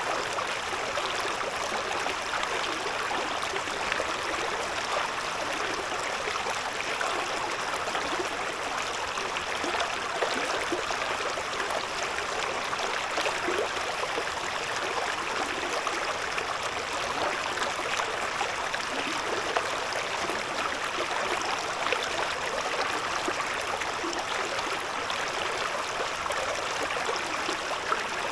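A shallow river or stream babbling steadily, water running over stones with small splashes and gurgles.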